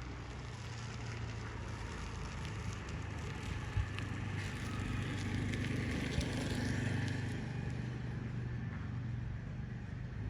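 Steady low hum of a running engine or motor, with a small knock about four seconds in.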